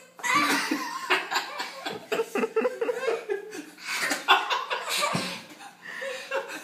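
Hearty laughter in quick runs of short laughs during rough play-wrestling.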